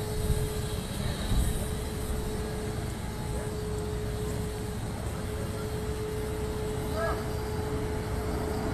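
Leaking LPG cylinder burning as a jet of flame at its valve, giving a steady roar, with a thin steady hum behind it. A voice is faintly heard about seven seconds in.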